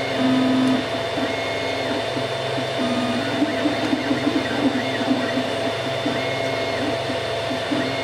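Cocoon Create 3D printer (a rebadged Wanhao Duplicator i3) printing its first layers: the stepper motors whine in short tones that start, stop and jump in pitch as the print head moves, over a steady fan hum.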